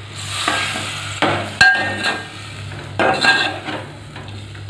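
A spoon stirring sliced potatoes in a metal pot of frying masala, scraping and knocking against the pot several times with short ringing clinks, over a sizzle.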